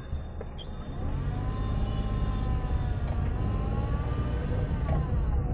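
A car driving, its engine and road rumble heard from inside the cabin and growing louder about a second in, with a whine above it that rises and falls in pitch twice.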